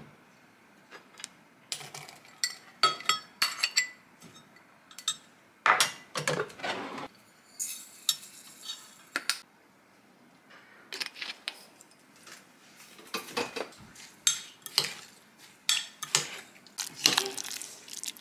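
A metal spoon clinking and tapping against a glass measuring cup as ingredients are spooned into it, with a short soft rustle about eight seconds in, then quick repeated scraping clinks as a kimchi seasoning paste is stirred near the end.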